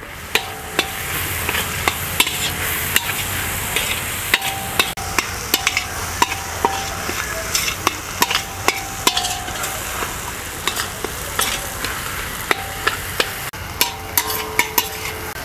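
A utensil stirring and scraping a potato, pea and spice masala in a hot pan, with irregular sharp knocks against the pan over a soft sizzle of the filling frying.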